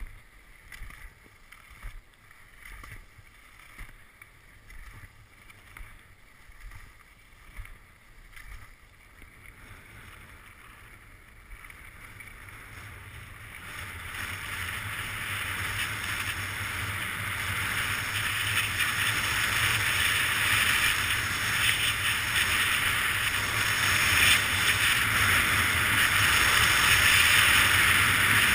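Sliding downhill over groomed snow: soft swishes about once a second at first, then, from about halfway, a steady hiss of snow and rushing air that grows louder as speed builds.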